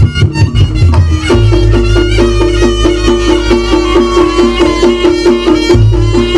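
Live Javanese Reog gamelan music: drums and gongs beat a fast steady pattern under a pitched melody line. A low held tone enters about a second in.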